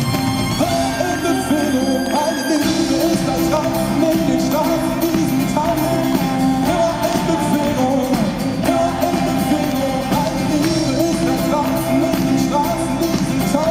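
An acoustic pop-rock band plays live with singing, running steadily.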